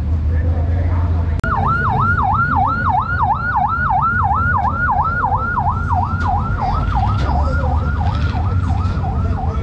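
Police-car siren on the yelp setting, rising and falling about four times a second, starting about a second and a half in over a steady low rumble.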